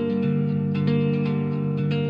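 Intro music led by plucked guitar, with a run of picked notes over held chords.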